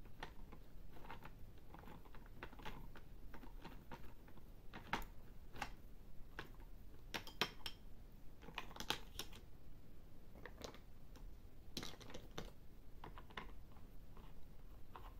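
Plastic toy screwdriver turning a plastic screw in a toy take-apart truck: faint, irregular plastic clicks and clatter, with a few quick clusters of clicks.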